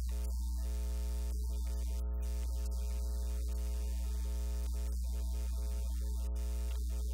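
Steady electrical mains hum: a loud low drone with a stack of higher overtones, unchanging throughout, with no speech coming through.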